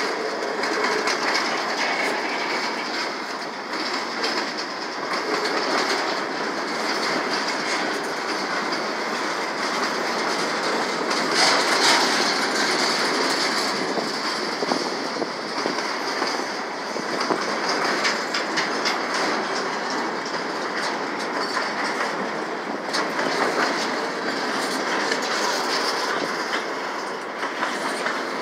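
Freight train boxcars and flatcars rolling past at close range: a steady noise of steel wheels on rail, with repeated clicks as the wheels cross rail joints, more frequent toward the end.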